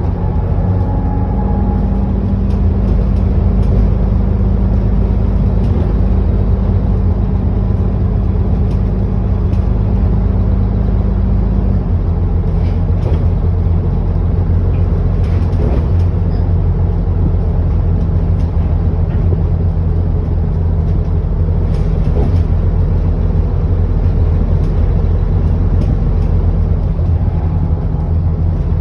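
ADL Enviro400 double-decker bus engine running under way, heard from on board as a steady low drone. The engine note shifts about twelve seconds in, and short rattles come through now and then.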